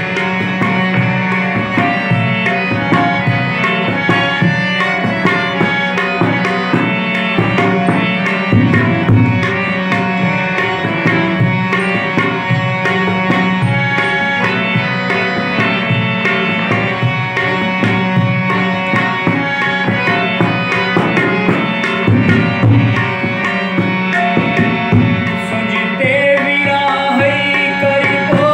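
Harmonium playing a melodic instrumental passage over a steady held low note, with a drum beating along. A man's singing voice comes in near the end.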